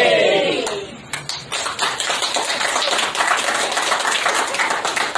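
A voice trails off, then a group of people applauds, the claps dense and irregular.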